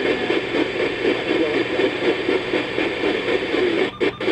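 Radio receiver audio: a steady hiss with indistinct, wavering voice-like sounds underneath, with no clear words.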